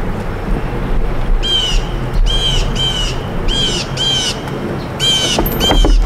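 A bird calling over and over, about eight short calls, mostly in pairs, starting about a second and a half in. Under the calls runs a steady low rushing noise.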